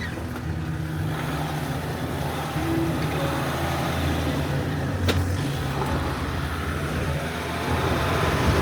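Vehicle driving, with a steady engine hum and road noise and one sharp click about five seconds in.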